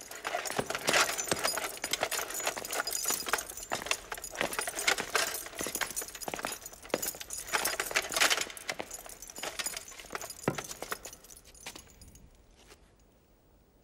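Footsteps of soldiers on stone paving with the jingle and clink of their metal armour and gear, a dense irregular clatter that dies away near the end.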